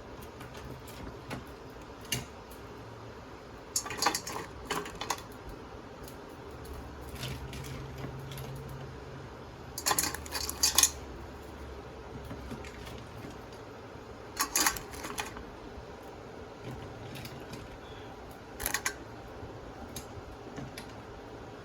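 Snow crab legs being set into a metal steamer pan, their hard shells clattering and knocking against the metal in short bursts every few seconds.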